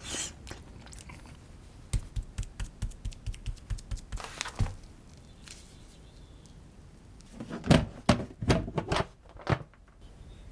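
Kitchen prep sounds: a run of quick, even taps, about five a second, then a cluster of louder knocks and clatters near the end.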